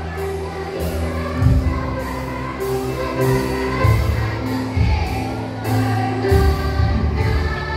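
A children's choir singing together over instrumental accompaniment with a strong bass line.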